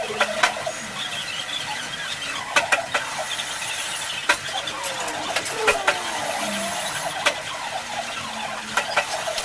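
Metal lathe machining an internal thread: the cutting tool squeals with a wavering pitch, and sharp clicks come at irregular moments.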